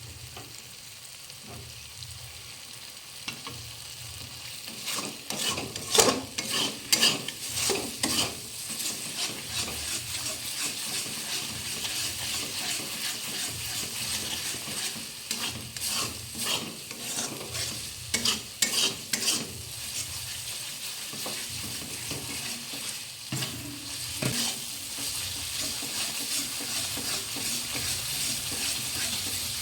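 Spice paste sizzling in hot mustard oil in a pan while a spatula stirs and scrapes it, with frequent sharp scraping clicks, busiest in the first half.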